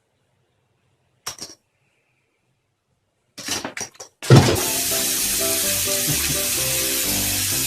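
A short swish about a second in and a few more just before four seconds, then music starts with a loud start at about four seconds, with a steady hiss over it.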